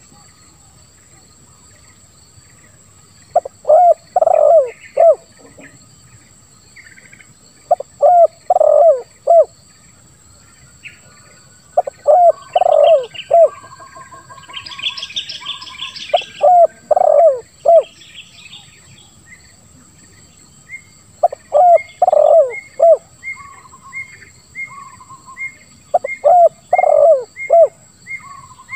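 Spotted dove cooing in repeated phrases, six bursts of several low coo notes about every four to five seconds, in the call style its keepers call 'lambung kuk 1'. Other small birds chirp faintly between the phrases, with a quick series of chirps near the end.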